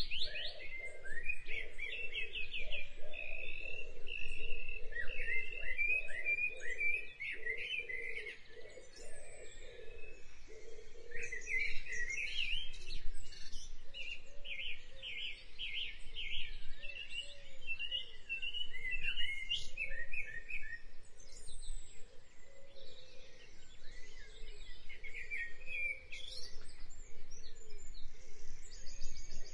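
Birds chirping and trilling in runs of quick repeated high notes, with short pauses between phrases.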